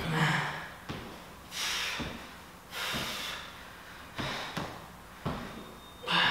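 A man breathing hard through an exercise set, with forceful exhales about every second and a half, five in all. Light thumps from his movement fall between the breaths.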